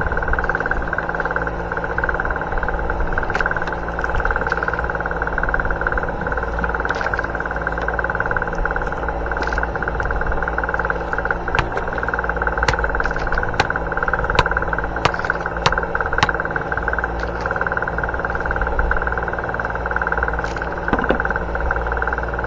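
A boat engine running steadily with an even hum. A run of sharp clicks or taps comes through it in the middle.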